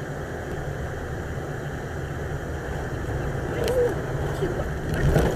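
Car cabin road noise recorded by a dashcam: the steady low rumble of tyres and engine while driving on a snowy road. Near the end it grows louder and rougher.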